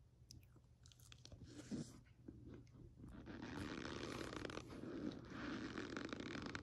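A spoon scooping and pressing into loose cornstarch powder, making a soft crunching. At first there are only a few scattered small crackles, then a dense, continuous crunch from about three seconds in.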